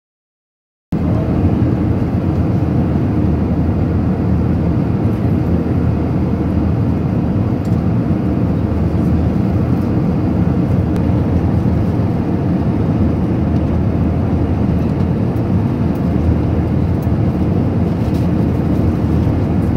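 Steady noise inside a jet aircraft at cruising altitude: airflow and engine drone, heaviest in the low end. It starts abruptly about a second in.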